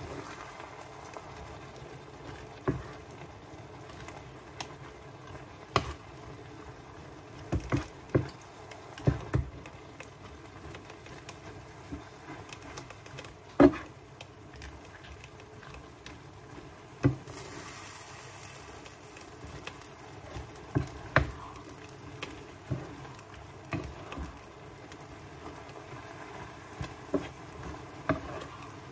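A wooden spatula stirring and tossing pancit canton noodles in a frying pan: irregular knocks of the spatula against the pan, the loudest about halfway through, over a steady low hiss.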